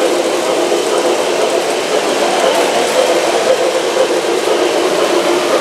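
Electric model steam locomotive pulling freight cars around three-rail track, its motor and wheels making a steady running noise.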